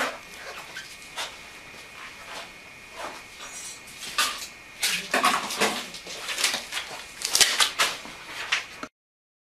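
Irregular clicks, knocks and rustling from hands handling dressing supplies while a small adhesive bandage goes on a freshly biopsied spot. The clicks grow louder and busier about five seconds in. A faint steady high tone sounds for the first few seconds, and all sound cuts off abruptly near the end.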